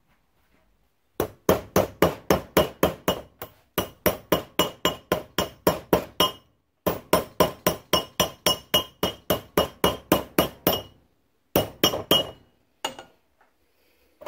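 Hammer rapidly striking a thin metal strip held over a steel pipe, bending it to shape. The blows come about four a second in four runs with short pauses between them, and each one rings with a high metallic clink. The hammering stops a little before the end.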